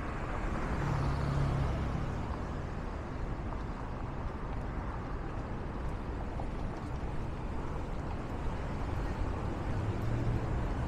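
City street traffic: a steady wash of road noise, with a car passing about a second in and another near the end.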